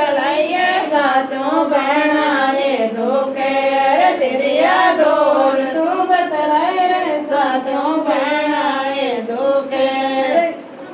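A group of women singing a Rajasthani Marwari folk song (lokgeet) to Bheru ji together, with no instruments. The singing breaks off just before the end.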